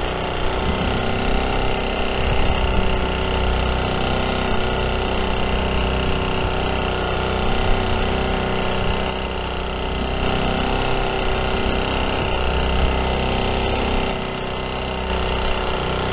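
A fishing boat's engine running steadily, a constant hum with a low rumble that doesn't change pitch.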